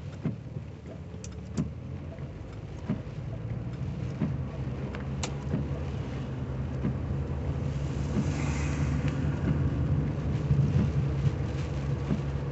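Inside a 1985 Cadillac Cimarron driving in heavy rain: a steady low engine and road rumble, with scattered clicks of rain and the wipers on the windshield. A brief hissing whoosh comes about eight seconds in as an oncoming car passes.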